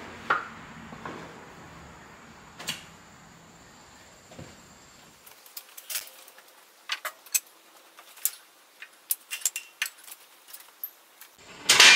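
Wooden blocks and a floor jack being handled under a heavy machine's base: scattered light knocks and clicks, with one loud clang that rings briefly near the end.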